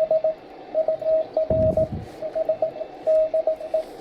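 Morse code (CW) received over amateur radio: a single steady tone keyed on and off in dots and dashes, over a hiss of band noise, with a low thud about one and a half seconds in.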